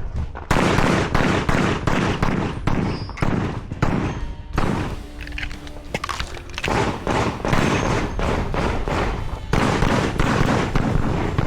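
Rapid handgun fire: many quick shots in dense strings, with a break of about two seconds near the middle before the shooting resumes.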